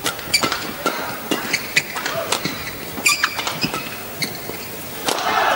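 Badminton rally: rackets striking the shuttlecock in a quick series of sharp clicks, with court shoes squeaking in short high chirps on the court surface. About five seconds in, a brief swell of crowd noise.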